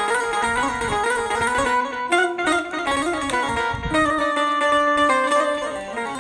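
Banjo being played: a plucked melody moving note by note, with a few longer held notes in the second half.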